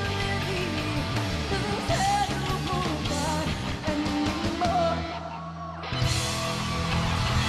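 Rock band playing live: a woman singing over electric guitar, bass and drums. About five seconds in the band drops back for a moment, then crashes back in at full volume.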